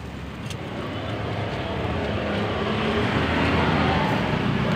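A motor vehicle's engine approaching, growing steadily louder as it comes near.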